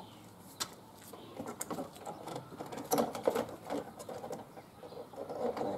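Length of plastic guttering being handled and fitted into its brackets: irregular clicks, taps and rattling knocks of plastic on plastic, busiest about three seconds in.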